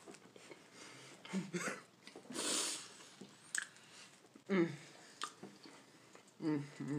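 A person chewing and eating a soft chocolate chip cookie, with wet mouth clicks and smacks. A few short voiced sounds come in between bites.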